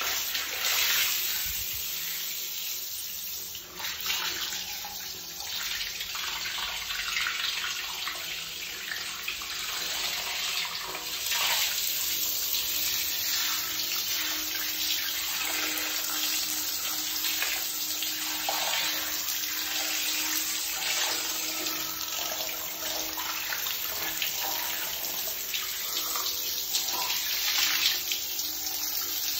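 Handheld shower head spraying a steady stream of water onto socked feet and a tiled shower floor, an even hiss of splashing water.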